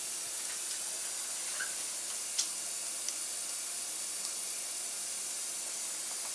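Steady hiss of background noise, with a few faint clicks as gloved hands handle the plastic ViziLite light stick, the clearest about two and a half seconds in.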